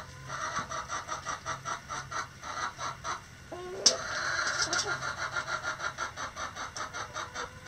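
Backyard chickens in a coop, with a short low hen call that steps up in pitch about halfway through. Behind them runs a rapid, even chirping of about six pulses a second, and there is a sharp click just before the call ends.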